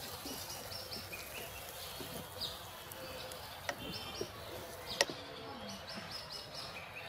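A slotted wooden spatula scrapes and knocks against a steel kadai as cauliflower in masala is stirred and fried in oil, over a steady hiss, with one sharp knock about five seconds in. Birds chirp several times.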